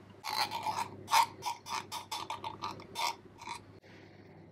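A metal knife scraping wholegrain mustard out of a glass jar: about ten quick, uneven scrapes of metal against glass over some three seconds.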